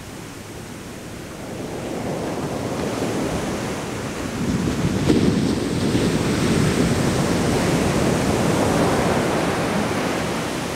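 Heavy shore-break surf crashing and rushing up the sand, building about two seconds in and surging to its loudest about five seconds in.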